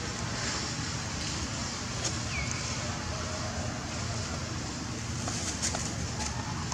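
Steady outdoor background noise, a hiss with a low rumble, with a few faint clicks and one short falling chirp about two seconds in.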